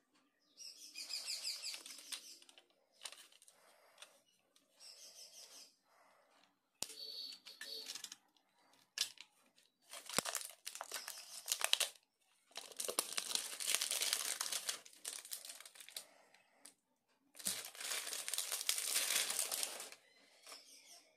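Clear plastic shrink wrap crinkling and tearing as it is pulled off a pair of aerosol deodorant cans. It comes in several bursts of rustling, the longest near the middle and near the end, with a few light knocks between.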